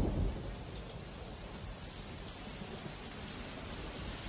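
Steady monsoon rain falling, an even hiss with no change in level. The tail of a low thunder rumble dies away in the first moment.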